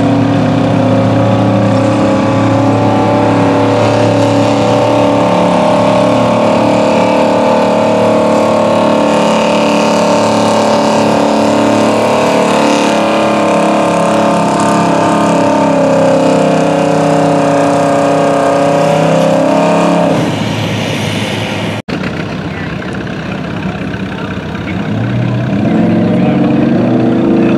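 Gasoline engine of a modified GMC pickup pulling a weight-transfer sled, held at high revs under heavy load, then falling off about 20 seconds in as the pull ends. After a break, a second pickup, a Chevrolet square-body, runs more quietly and starts revving up near the end.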